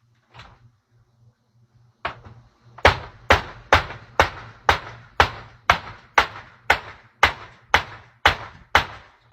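A hammer striking a screen door in a steady run of hard blows, about two a second, after a few lighter taps.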